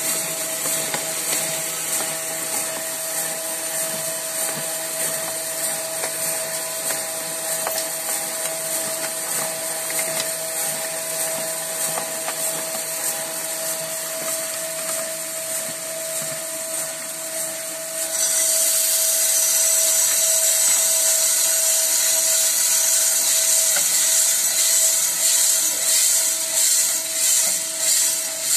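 A DIY drum coffee roaster runs with a steady motor hum while roasted coffee beans tumble in the drum. About 18 s in, the drum door is opened and the beans pour out into the cooling tray with a loud rushing hiss. Near the end the beans swish in the tray in a regular pulse, about one and a half a second.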